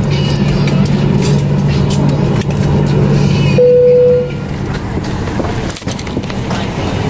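Inside a Boeing 737-900ER cabin at the gate, a steady low cabin hum cuts off about three and a half seconds in. At that same moment a single low chime sounds, briefly, typical of the seatbelt sign being switched off on arrival. After it come irregular handling and movement noises with a few clicks.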